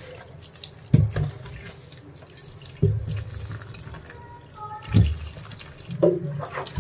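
Tap water running into a stainless-steel kitchen sink as peeled raw bananas are rinsed by hand over a steel plate, with four dull knocks spread through it.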